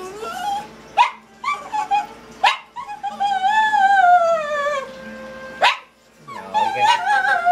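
Small pet dogs begging for treats with whines and yips: a long drawn-out whine that falls in pitch in the middle, another starting near the end, and short sharp yips between them.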